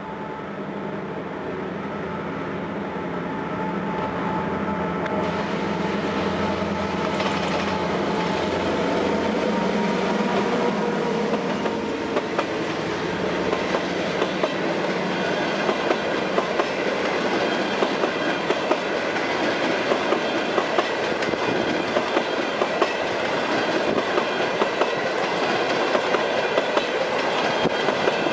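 CSR diesel locomotive running as it approaches and passes, getting steadily louder. About halfway through, its passenger coaches roll by close, with a regular clickety-clack of wheels over rail joints.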